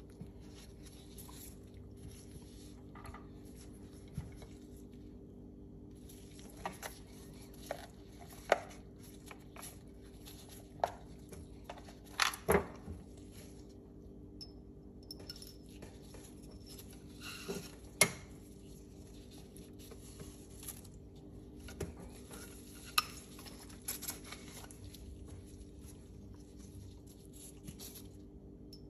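Small metal pistol parts being handled and set down on a cloth-covered table: scattered sharp clicks and clinks of steel on steel, several seconds apart, the loudest about twelve and eighteen seconds in, over a faint steady hum.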